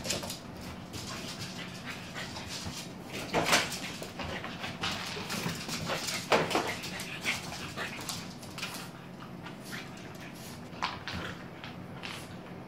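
French bulldog puppy whimpering while it plays, with two louder short cries about three and a half and six seconds in.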